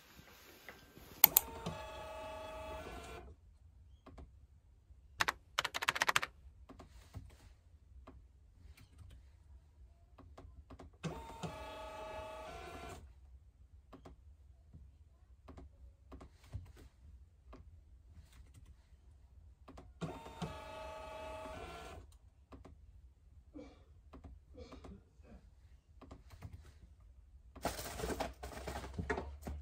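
Dymo label printer printing three times, each a whirring run of about two seconds, roughly nine seconds apart. Laptop keyboard typing and sharp clicks fill the gaps.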